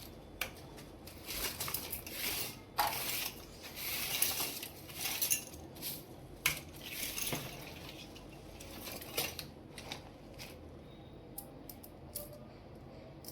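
Small hard plastic toy pieces being handled: a run of clicks, clinks and clatters with short rustling stretches, busiest in the first half and thinning out to scattered clicks near the end.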